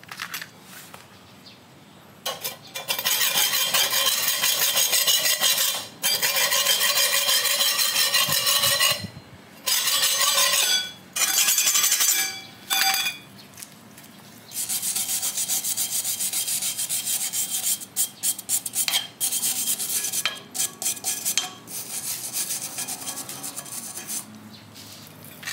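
Rasping, scrubbing strokes of an abrasive on metal in several long bursts with short breaks. This is the sound of rust being worked off the scooter's underside.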